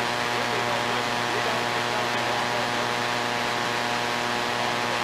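Steady hiss with a low electrical hum: the noise floor of an old videotape soundtrack, with no distinct game sounds standing out.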